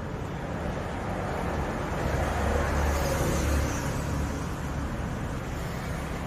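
Low, steady rumble of a motor vehicle that swells louder from about two to four seconds in, then eases off, as a vehicle going past does.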